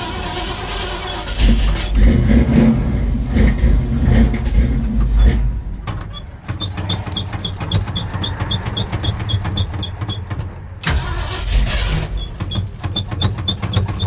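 Old Ford Bronco engine on a cold, hard start: it catches and runs loudly and unevenly for a few seconds, sags around the middle, and keeps running lower with a light regular ticking about three times a second. Near the end it briefly cuts out and then comes back with a burst.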